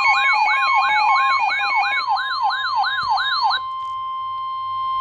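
Electronic siren-style alert sounding: a rising sweep repeating about three times a second over steady beeping tones. About three and a half seconds in the sweeps cut off, leaving one steady high tone, the NOAA Weather Radio 1050 Hz warning alarm tone that comes before a warning is read.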